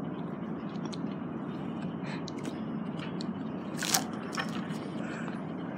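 Steady background hum of a busy indoor room, with a few sharp clicks and taps, the loudest about four seconds in.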